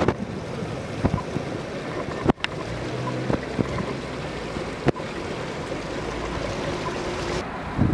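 Water from a broken water pipe running across the road and along the gutter into a storm drain, a steady rushing hiss. It breaks off briefly twice.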